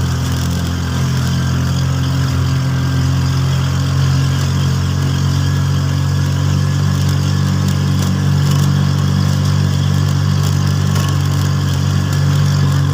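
A vehicle engine running steadily, a low even drone.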